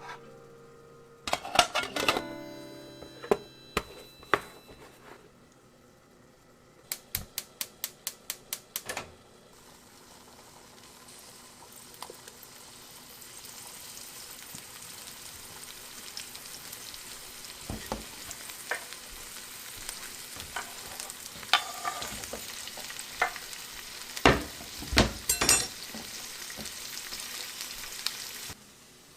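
Kitchen sounds: clinking of dishes, then a quick run of about ten sharp clicks, followed by food frying in a pan, its sizzle building gradually, with occasional knocks of a utensil stirring, until it cuts off suddenly near the end.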